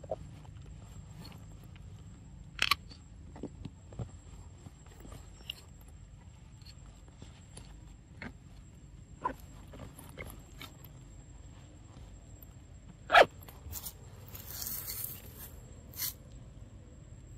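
Scattered light clicks and dry rustles over a low steady outdoor background, the loudest a sharp knock about thirteen seconds in, followed by a short rustle.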